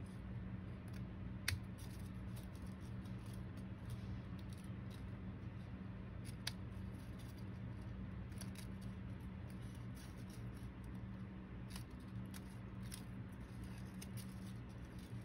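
Scissors snipping through a paper index card in short, irregular cuts, with two louder snips, one about a second and a half in and one about six and a half seconds in.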